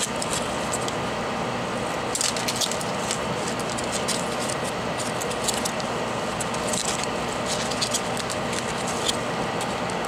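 Steady hiss of a hot-air rework station's blower. Over it, clusters of crinkling as aluminium foil is handled and pressed over the board as a heat shield, about two seconds in, around seven seconds and near the end.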